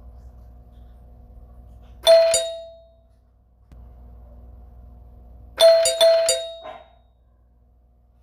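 Doorbell ringing: a single struck chime about two seconds in that rings out for about a second, then a quick run of three or four chimes near the end. A faint steady hum fills the gaps between rings.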